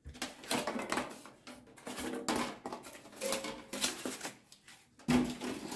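Handling noise from unpacking a deep fryer: irregular scrapes, rustles and light knocks as cardboard corner protectors are pulled off its stainless-steel housing.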